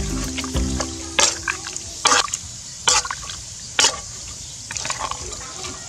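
Metal ladle stirring chicken pieces in liquid in a steel pot: wet sloshing with about four sharp strokes of the ladle against the pot, roughly a second apart. Background music plays for the first second.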